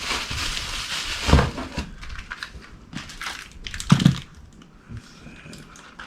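Packaging rustling and crinkling as parts are unwrapped and handled, with two dull knocks, about a second in and near four seconds in, as pieces are set down.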